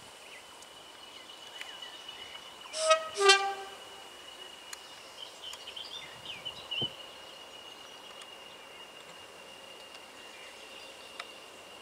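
English Electric Class 20 diesel locomotive sounding its two-tone horn as it approaches: two short blasts about three seconds in, the first higher and the second lower. A faint steady high tone and a few small chirps run underneath.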